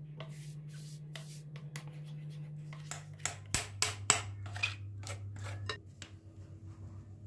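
Kitchen utensil scraping and clinking against a bowl as cake batter is stirred, in a run of short scrapes and taps, over a steady low hum.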